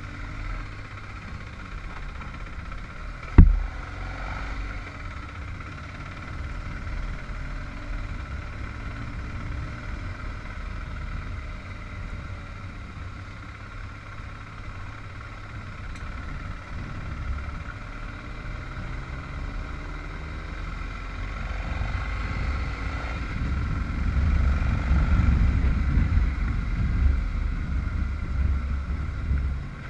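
Vehicle engine running while driving, with a low steady hum. A single sharp knock comes about three seconds in. Toward the end the low rumble grows louder and rougher.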